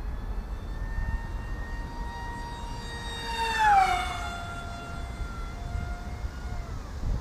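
HEE Wing F-01 FPV flying wing's motor and propeller whining as it flies past. The whine swells to its loudest about three and a half seconds in and drops sharply in pitch as the wing passes, then goes on at the lower pitch and drops again near the end.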